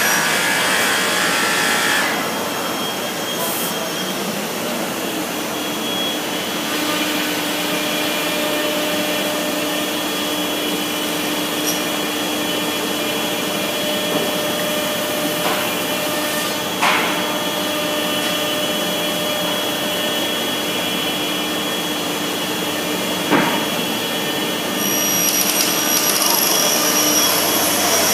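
Morbidelli Author 500 S CNC router running with a steady, loud rushing noise and faint hum, broken by a couple of sharp clicks. Near the end a high whine joins in and holds.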